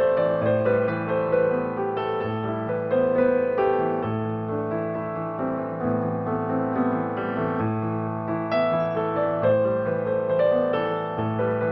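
Background piano music, slow and gentle, with notes and chords changing every second or so.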